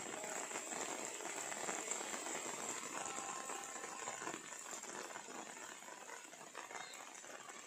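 Rain falling steadily on wet paving, an even hiss of many small drops pattering.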